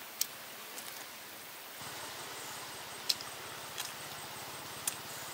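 A person eating roasted beef ribs: a few sharp mouth clicks and smacks while chewing meat off the bone, over a steady outdoor hiss that steps up slightly about two seconds in.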